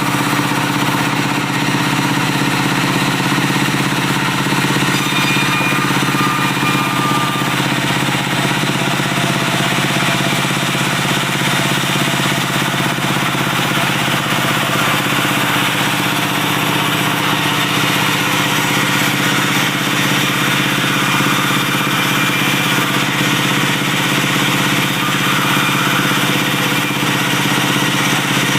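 Diesel engine of a timber sawmill running steadily at an even speed.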